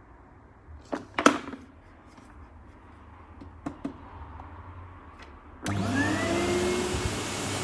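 A few sharp knocks and clicks, the loudest about a second in, then, near the end, a Numatic HenryXtra cylinder vacuum cleaner switched on: its motor whine rises as it spins up and settles into steady running.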